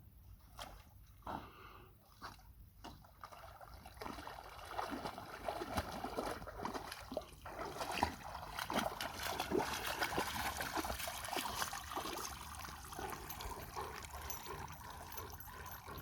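Water splashing and trickling from a dog moving in lake water. It is sparse at first and becomes a dense, louder splashing about four seconds in.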